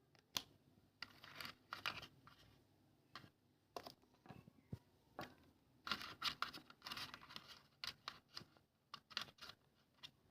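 Hands handling a smartphone and its packaging: irregular faint scraping, rustling and sharp little clicks and taps, some in quick runs.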